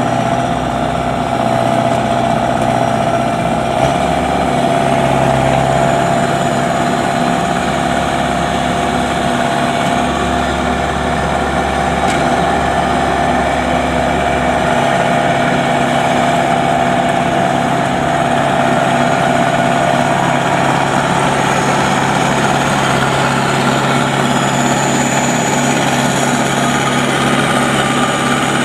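Engine of a homemade Vietnamese combine harvester running steadily, with a slight change in tone about four seconds in.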